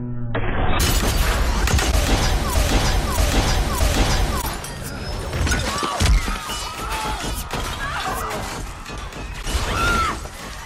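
Film action-scene sound effects: a dense barrage of rapid weapon fire, shattering glass and crashes, starting suddenly just after the start, with a music score underneath.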